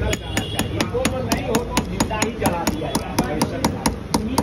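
Small metal pestle pounding on a stone slab in quick, even strikes, about four a second.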